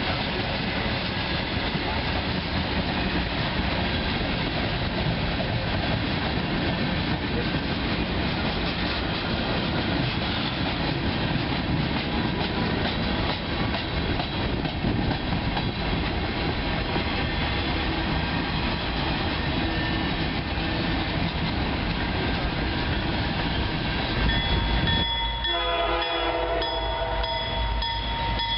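A train passing close by, its wheels and cars rumbling and rattling steadily on the rails. Near the end a train horn sounds with several steady pitches over the rumble.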